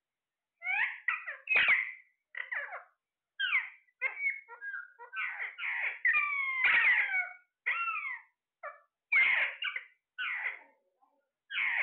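A parrot's calls: a string of short squawks and chirps that glide up and down in pitch, with a longer, busier run of calls a little before the middle.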